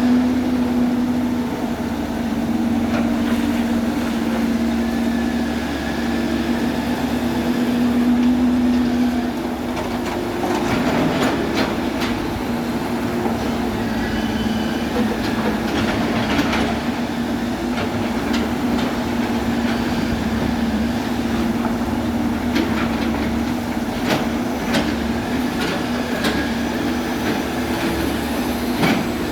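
Excavator engine running steadily under load, a constant heavy mechanical hum, with scattered sharp metallic clanks and knocks from the working machine.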